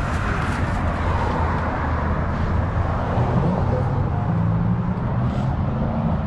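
Steady low rumble of road traffic, with a wavering engine hum.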